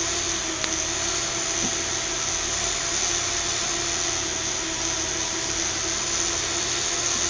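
Small fischertechnik electric motors, driven by pulse modulation, running steadily and spinning a pair of propellers, giving an even whine with several steady tones over a hum.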